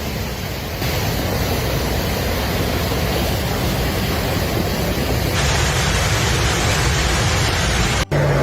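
Steady roar of rushing water, which changes abruptly about a second in and again past the five-second mark, with a brief dropout near the end.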